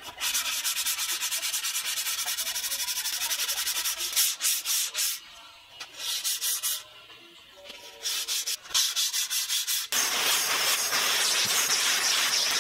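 Edge of a wooden board sanded by hand with a perforated sanding disc: quick, even back-and-forth strokes, which thin out and pause midway, then pick up again. About ten seconds in, a shop vacuum starts up and runs with a steady hiss as its nozzle sweeps the dust off the sanded panels.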